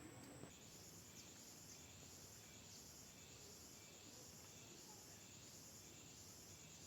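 Faint, steady, high-pitched insect chirring, pulsing about twice a second.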